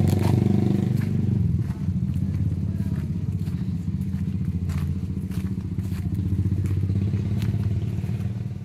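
An engine running steadily, a low even hum whose note shifts slightly about one and a half seconds in, with scattered light crackles and clicks over it.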